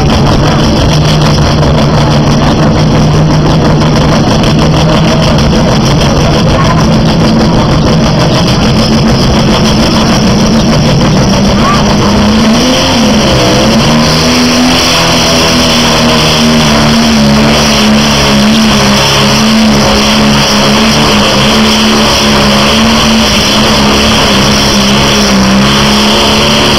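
John Deere pulling tractor's diesel engine running loud at a steady pitch. About twelve seconds in its pitch wavers and climbs, then holds high and steady under full load as it drags the weight sled.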